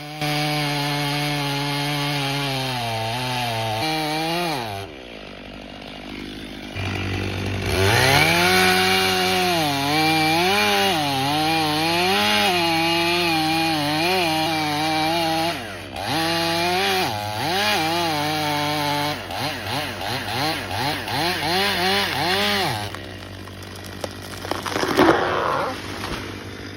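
Chainsaw running and cutting, its engine pitch rising and falling again and again as it revs under load. The sound drops away briefly about five seconds in and again near the end.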